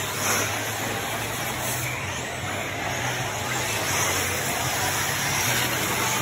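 Electric 1/8-scale RC truggies running laps on a dirt track, a dense steady noise of motors and tyres over a low hum.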